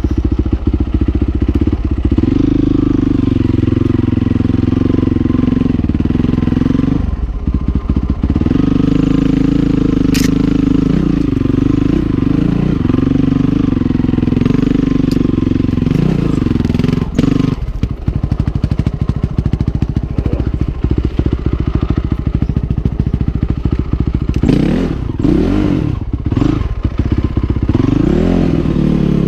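2008 Honda CRF450R's single-cylinder four-stroke engine, fitted with a Rekluse automatic clutch, chugging at low revs over rocks. The throttle closes briefly twice, and there are a few quick revs rising and falling near the end.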